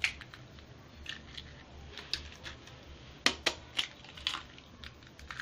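Eggs being cracked into a clear blender jar: a sharp tap of eggshell at the start, faint crackling of shell, then a quick run of four sharp taps about three seconds in as the second egg is cracked.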